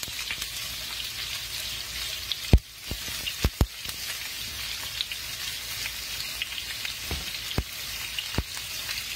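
Sliced onions sizzling in hot olive oil in a skillet, a steady frying hiss. A few sharp knocks come through as rings are dropped into the pan; the loudest is about two and a half seconds in.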